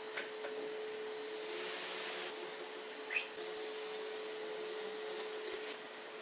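Folded paper slips rustling and shifting in a glass jar as a hand digs in and draws one out, with a light knock about three seconds in. A faint steady hum runs underneath.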